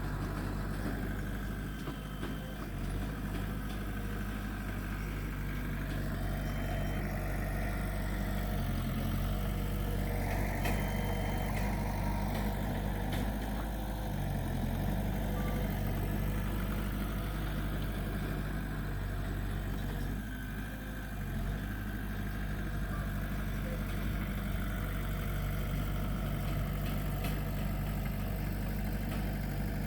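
Komatsu D20P bulldozer's diesel engine running steadily, its pitch shifting a few times as the engine load changes.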